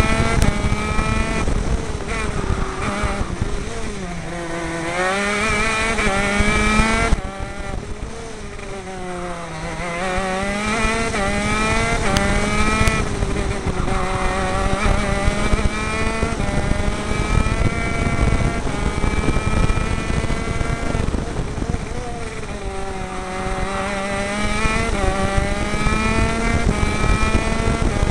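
A 125cc two-stroke KZ shifter-kart engine heard from on board, running at high revs. Its pitch falls as the kart slows for corners, with a sudden drop in loudness about seven seconds in when the throttle closes, and climbs again as it accelerates out, three times over.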